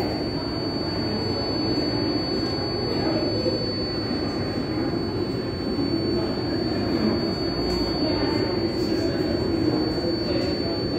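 Steady rumble of a New York City subway train running through the underground station.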